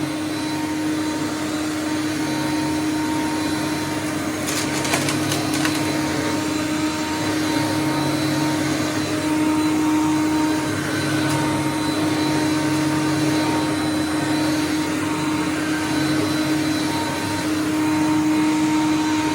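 Hoover Conquest upright vacuum running steadily with a constant motor hum and airflow rush. About five seconds in there is a brief cluster of sharp clicks, as small hard objects are pulled up into its heavy-objects clean-out compartment, which keeps them from reaching the fan.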